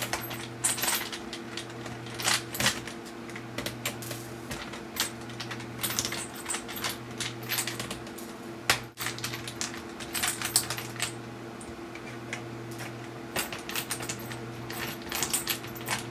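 Irregular small metallic clicks and clinks of a screwdriver backing out the tiny screws around a laptop's screen bezel, with the screws being picked out and set down, over a steady low hum.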